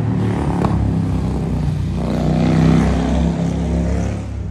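A motor vehicle's engine running with a low, steady drone that builds to its loudest about two and a half seconds in, then eases off.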